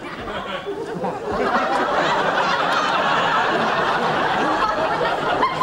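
Audience laughing, many voices together, swelling about a second in and holding.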